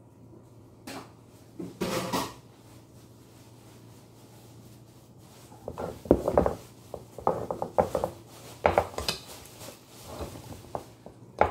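Kitchen scraps tipped from a plastic container into a black plastic compost bucket: a couple of short clatters about two seconds in, then a run of knocks and rattles from about six seconds on as the upturned container is shaken and bumped against the bucket's rim.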